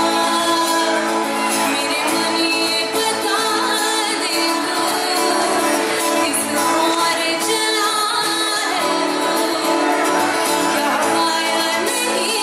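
A woman singing a melody into a microphone with acoustic guitar accompaniment, continuous music.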